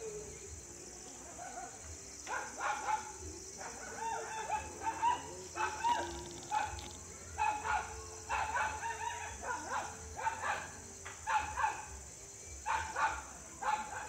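A dog barking repeatedly in short, irregular runs of barks, starting about two seconds in.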